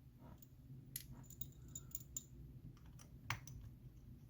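Faint scattered clicks and taps of a small precision screwdriver and tools working on the metal bracket screws inside an opened iPhone X, with the sharpest click just past three seconds.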